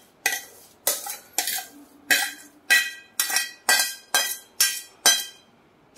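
Steel spoon scraping and knocking against a stainless steel kadhai as roasted gram flour is scraped out, about two strokes a second, each with a brief metallic ring. The strokes stop near the end.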